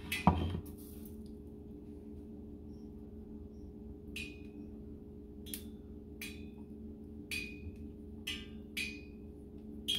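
A knock as a dish is set down, then from about four seconds in a series of light, irregular taps on a ceramic plate, each with a short ring, as battered chicken pieces are pressed and turned in flour on it.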